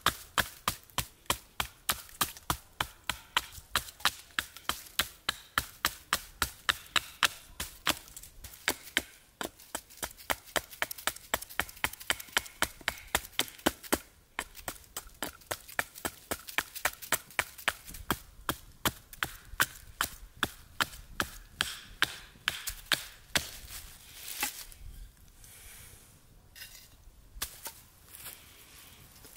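Small hatchet chopping a wooden spoon blank against a wooden board to rough out its shape, in quick, light, even strokes about three a second. The chopping stops about 24 seconds in, leaving a few scattered quieter knocks.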